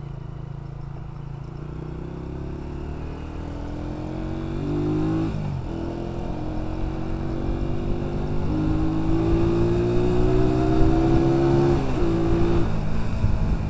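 Honda CG 125's single-cylinder four-stroke engine accelerating the motorcycle up through the gears. Its pitch rises steadily, drops sharply at an upshift about five and a half seconds in, climbs again and drops at another shift near the end.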